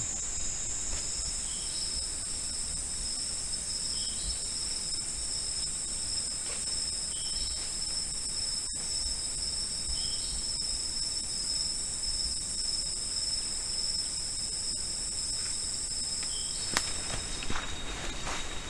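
Cicadas singing: a steady, high buzz that cuts off near the end. A short two-note call repeats every few seconds.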